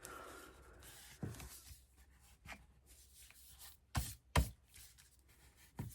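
Paper and card being handled and rustled, with a few sharp knocks and taps; the loudest two come close together about four seconds in.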